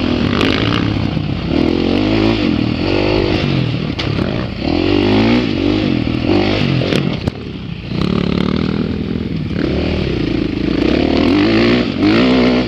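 Dirt bike engine heard close up from on the bike, revving up and falling back again and again as the rider accelerates and lets off around a motocross track; the throttle closes briefly about seven seconds in before it pulls hard again.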